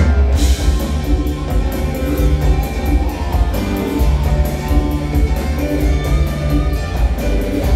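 Live rock band playing: electric guitars, bass guitar and drums, with heavy bass and a steady drum beat, heard from the audience.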